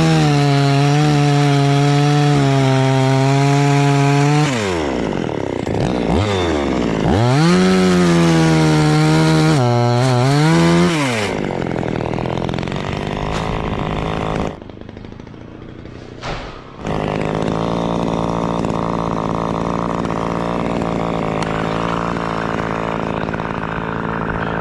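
Two-stroke chainsaw revved to full speed twice, for several seconds each time, dropping back and blipping between. It then settles into a steady lower run, dips quieter for a couple of seconds, resumes and cuts off suddenly at the end.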